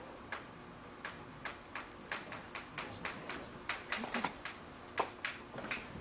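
Chalk writing Chinese characters on a blackboard: an irregular run of short, sharp taps and brief scratches, a few each second, as each stroke is put down.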